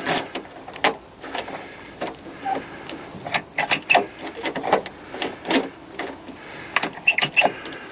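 Repeated irregular clicks and clacks of a 1995 Jeep Cherokee's door handle being pulled again and again, its sticky latch not releasing the door.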